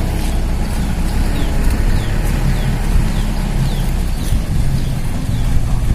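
An engine running steadily at a constant low pitch, with a bird giving short, high, falling chirps over it in the middle.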